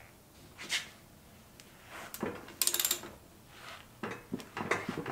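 Hand tools clicking and knocking against metal at a moped's rear wheel hub, with a short run of rapid, evenly spaced clicks a little past halfway.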